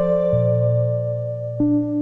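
Soft ambient music: slow, sustained keyboard chords, with a new low note coming in near the start and the chord changing about a second and a half in.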